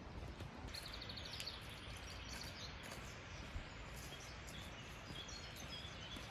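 Faint outdoor ambience with a steady low rumble and small bird chirps: a quick run of high notes about a second in and a few more near the end.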